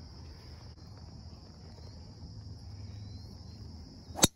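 A single sharp crack of a driver striking a golf ball off the tee about four seconds in, over a steady high-pitched insect chorus.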